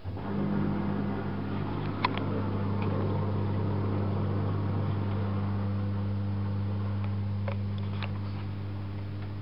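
Privileg Single 42614 washing machine during a cottons 40° cycle: a pump or valve starts abruptly with a steady mains hum over a rushing water noise, with a few light clicks from inside the machine.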